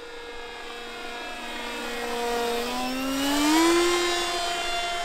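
Electric RC plane's brushless motor (Sunnysky 3525 880kv) and 12x6 propeller running in flight with a steady pitched drone. The drone grows louder and rises in pitch over about a second, loudest a little past halfway, then holds at the higher pitch.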